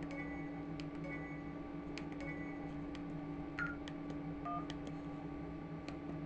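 Keypad of a Samsung SGH-E250 mobile phone: short electronic key beeps and sharp button clicks as keys are pressed again and again, over a steady low hum.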